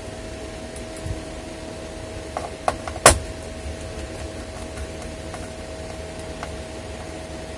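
A few sharp clicks and taps of a small screwdriver and fingers on a laptop's plastic base panel, the loudest about three seconds in, over the steady hum and hiss of an electric fan.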